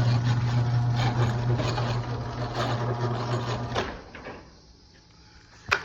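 LiftMaster MJ 5011U commercial garage door opener running the door up: a steady motor hum with rattling over it, which cuts off about four seconds in. A sharp click comes near the end.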